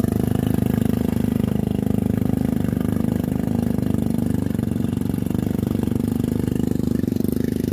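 Yamaha Bear Tracker 250 ATV's single-cylinder four-stroke engine running steadily at low speed with an even pulse while the quad wades through floodwater.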